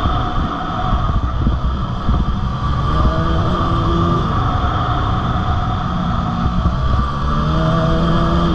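Dirt bike engine running at speed, its pitch rising and falling several times as the throttle is worked. Wind buffets the on-board camera's microphone as a heavy low rumble.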